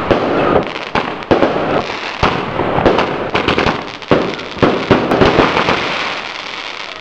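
Consumer fireworks fused together, firing in rapid succession: roughly a dozen sharp bangs of shells bursting, over a continuous crackle and hiss of sparks.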